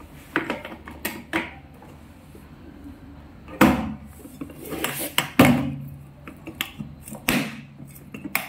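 Metal hand tools being put into a plastic toolbox, clattering and knocking against the box and each other in a string of separate sharp knocks and clicks.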